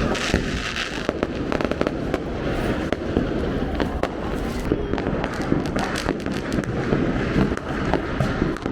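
Firecrackers going off continuously: many sharp cracks and pops overlapping, over a steady crackling din.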